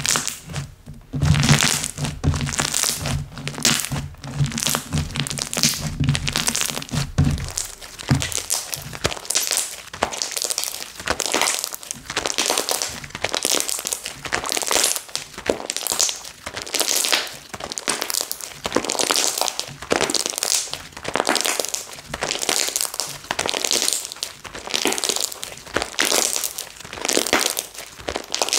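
Slime being pressed, poked and stretched by hand, giving crisp crackling, clicking pops over and over, roughly one a second.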